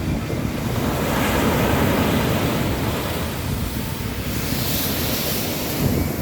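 Sea waves breaking on a beach, swelling about a second in, then a hissing wash of surf near the end, with wind rumbling on the microphone.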